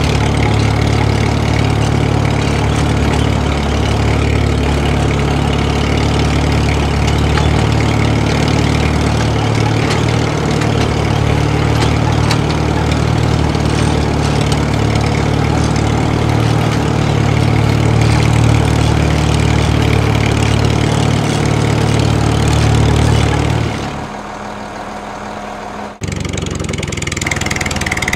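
Steady, low engine running sound of a tractor pulling a load. About 24 seconds in it drops away, and after a sharp break two seconds later a different engine sound takes over.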